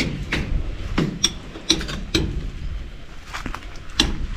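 Hammer striking a chisel to chip away at a brick wall: a string of sharp, ringing metal strikes, roughly two a second, with a short lull near the middle.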